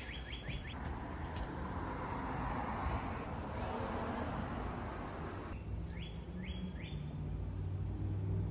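A bird chirping in quick rising notes, a few at the start and three more about six seconds in, over a steady background hiss and low hum.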